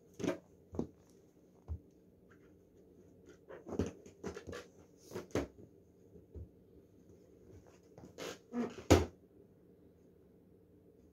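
Air Jordan 13 sneakers stepping and shifting on a hard floor: a loose series of soft thuds and rubber-sole scuffs, the loudest near the end.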